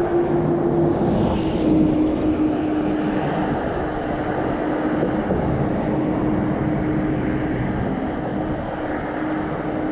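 A steady engine drone holding one pitch, dipping slightly about a second and a half in, over an even rushing background noise.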